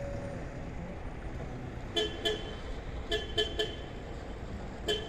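Vehicle horn sounded in short toots: a quick pair about two seconds in, three more about a second later, and one more near the end, over a steady low rumble.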